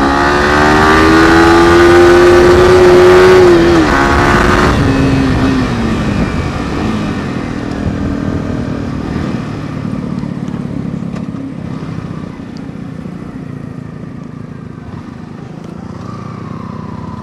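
Yamaha R15 V3 single-cylinder engine pulling under acceleration, its note rising steadily for about four seconds, then dropping as the throttle is eased. After that the engine note fades under a rush of wind and road noise that slowly gets quieter.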